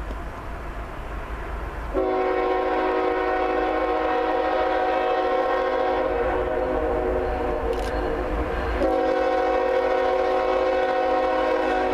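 Approaching locomotive sounding its air horn, several notes at once: a long blast starting about two seconds in, a brief break, then a second long blast near the end, over a low rumble.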